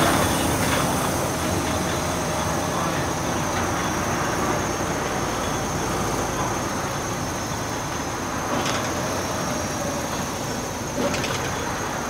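Volvo B6BLE single-deck bus under way, heard from inside the saloon: steady diesel engine and road noise with a thin high-pitched whine over it. Two brief rattles come in the later part.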